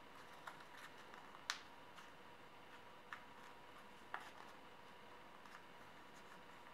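Faint crinkles and ticks of a square of origami paper being folded and pressed by hand, a few scattered short sounds, the sharpest about a second and a half in.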